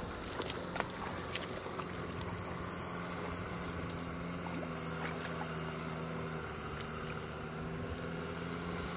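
A tractor engine running steadily, a low even drone, with a few faint wet clicks and splashes from hands working in shallow muddy water.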